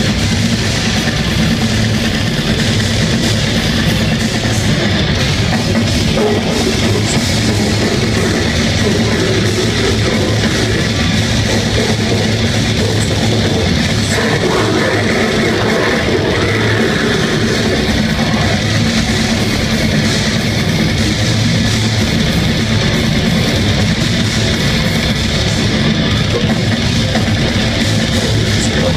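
Death metal band playing live, with distorted electric guitars and a drum kit in a dense, loud, unbroken wall of sound, heard from the audience.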